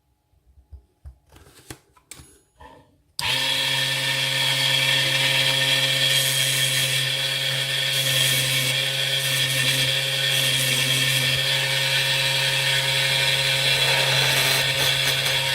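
A few light clicks of small parts being handled, then a small electric power tool switches on about three seconds in and runs at a steady speed, with a steady hum.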